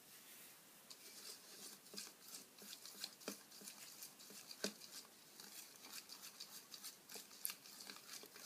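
Metal spoon stirring white glue and paint in a glass bowl: faint wet stirring with light, irregular clicks of the spoon against the glass, starting about a second in.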